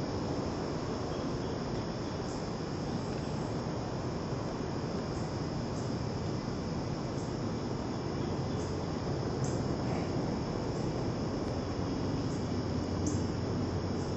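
Insects chirring steadily in a continuous high trill over a constant low hiss, with a few faint short high chirps scattered through.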